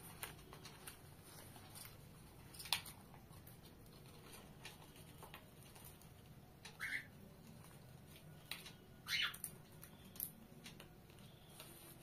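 Cockatiels feeding on the floor: scattered light ticks and clicks of beaks pecking at seeds and a snack wrapper, with a sharper click about three seconds in. Two short chirps come in the second half.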